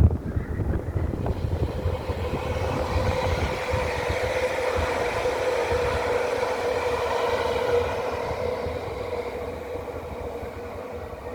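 Train running past, a steady whine over rumbling rail noise that swells to its loudest about six to eight seconds in and then fades away.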